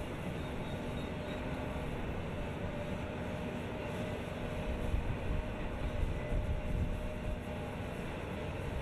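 CAT 320 crawler excavator's diesel engine running steadily, a low rumble with a faint steady hum over it, getting a little louder and rougher in the middle.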